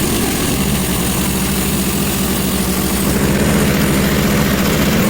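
Sawmill's engine running steadily, with a steady hum and a wide hiss over it.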